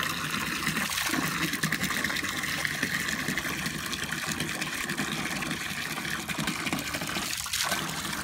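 Water gushing steadily from a garden hose, splashing into a plastic water tub.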